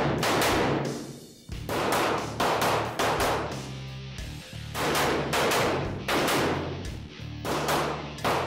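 Several quick strings of gunshots from a rifle and a Stoeger STR-9 S Combat 9mm pistol, each shot ringing on in the room, over background music with a steady bass line.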